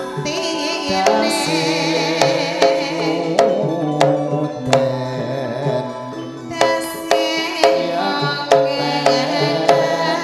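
Javanese gamelan (karawitan) playing tayub dance music: sustained ringing metallophone tones punctuated by sharp hand-drum (kendang) strokes, with a female singer's wavering voice over the ensemble.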